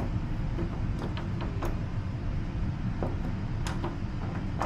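Scattered light clicks of lock picks working the pins of a door lock, over a steady low rumble.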